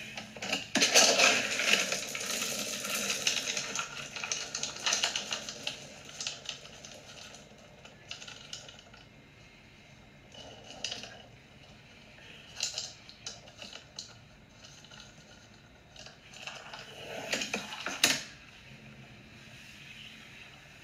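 Dry dog kibble rattling as a plastic scoop digs into a bin of it, with scattered clicks of pellets shifting, then a short clatter of kibble against a stainless steel dog bowl near the end.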